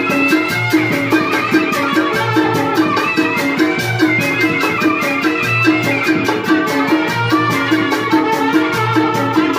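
Live tanji band music: drums keeping a fast, steady beat under a melody of held notes.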